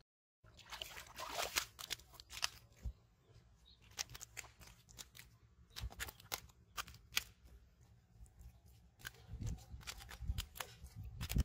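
A large landed fish flopping on wet mud: irregular sharp slaps and crackles, with a few heavier thumps near the end.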